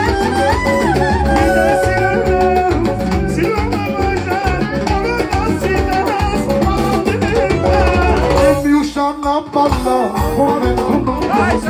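Live band music played through PA speakers: keyboard synthesizer and clarinet over a steady drum beat. The low drums drop out briefly about three-quarters of the way through, and a man sings into a microphone near the end.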